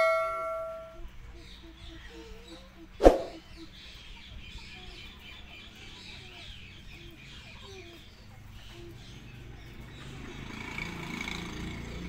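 A metallic clang rings and fades over the first second, and a sharp knock with a brief ring sounds about three seconds in. Between and after them come faint bird calls and chirps, and a low rumble rises near the end.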